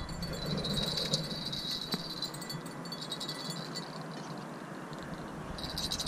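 Crickets trilling: a steady, high-pitched, fast-pulsing trill that fades about halfway through and starts again near the end.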